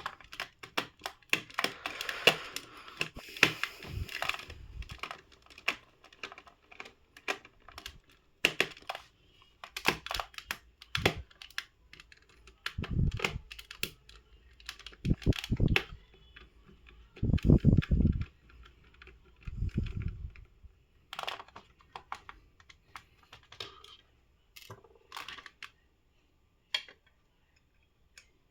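Handling noise from taking apart a plastic mosquito racket: irregular small plastic clicks and taps as parts are pried and moved, with several louder, deeper knocks about halfway through.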